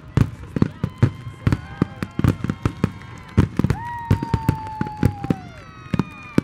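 Fireworks display with aerial shells bursting in rapid succession, several bangs a second. Long high tones sound over the bangs, one sliding down in pitch about four seconds in.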